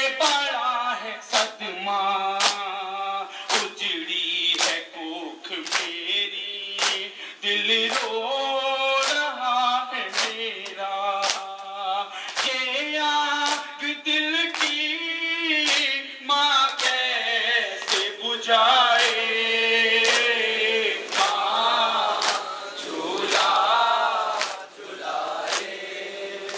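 Group of men chanting a nauha (Muharram lament) in unison, with sharp slaps about once a second keeping the beat: hands striking chests in matam.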